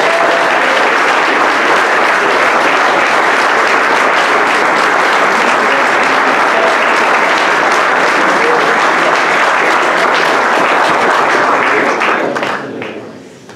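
Audience applauding steadily, then dying away about a second before the end.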